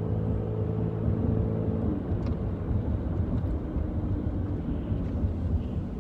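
Car engine and road rumble heard from inside the cabin while driving: a steady low drone whose engine note changes about two seconds in.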